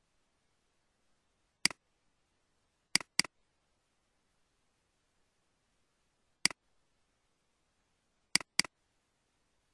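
Computer mouse button clicking: a single click, a double click, another single click, then a second double click, each click short and sharp, with near silence between.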